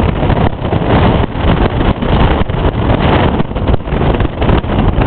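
Wind buffeting the microphone from a moving car, a loud, uneven rushing that swells and dips, with road noise underneath.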